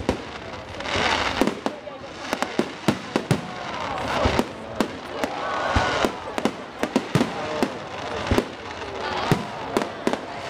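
Fireworks display: an irregular run of sharp bangs and pops from aerial shells bursting, over a steady background hiss.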